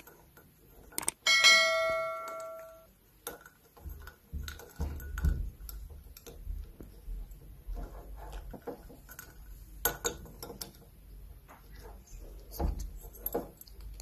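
A click and then a bell-like ring lasting about a second and a half, followed by soft scattered taps and scrapes as an African grey parrot's beak works in a porcelain mug.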